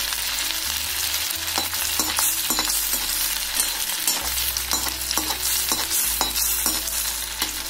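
Oil sizzling with frequent pops as a piece of carrot-and-potato dhokla shallow-fries on medium heat, with clicks of a metal spatula moving it in the pan.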